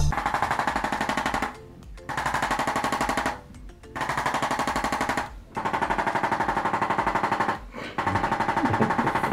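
Rapid stuttering pulse in background music, about a dozen beats a second, broken into chunks of one to two seconds by short pauses. It sounds rather like machine-gun fire.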